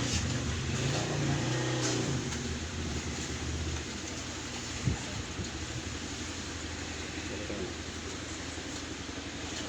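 A low, steady mechanical hum over background noise, like a motor vehicle's engine running, strongest for the first few seconds and then easing off. A single sharp knock comes about five seconds in.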